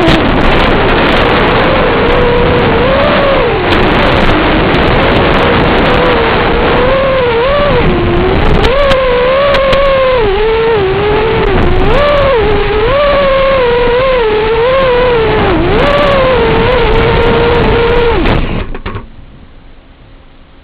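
Motors of a QAV-R220 FPV racing quadcopter whining, their pitch rising and falling with the throttle, under heavy wind noise. The sound falls away suddenly about two seconds before the end.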